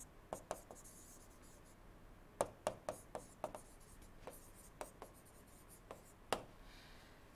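Stylus writing on a tablet screen: faint, irregular tapping clicks as pen strokes start and end, about a dozen spread through, with light scratching between them.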